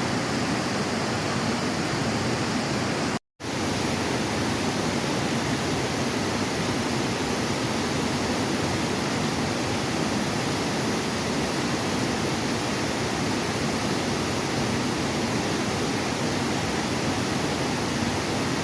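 Waterfall, a steady, dense rush of falling water. The sound drops out completely for a split second about three seconds in, then resumes unchanged.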